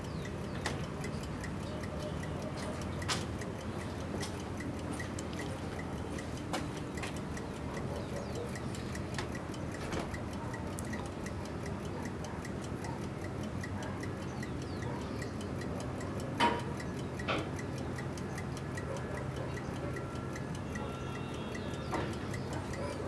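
Rapid, even ticking over a low steady hiss, with a few louder separate clicks scattered through it, the loudest about two-thirds of the way in.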